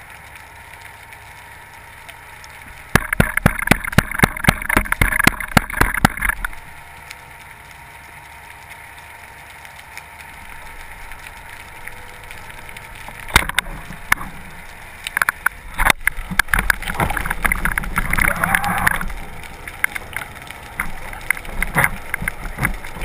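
Underwater sound through a diving camera's housing: a burst of rapid clicking and crackling a few seconds in, a few sharp knocks past the middle, then rushing, gurgling water noise.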